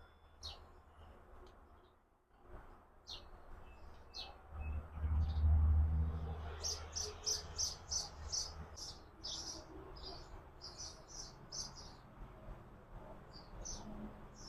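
Small birds chirping, a series of short high notes about four a second, in several runs. A low rumble swells about four to five seconds in and is the loudest sound for a couple of seconds.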